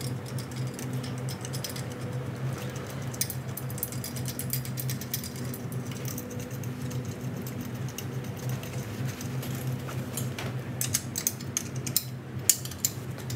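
Nuts and bolts being threaded by hand onto a go-kart's third-bearing housing: light metallic clicks and taps, thickest near the end, over a steady low hum.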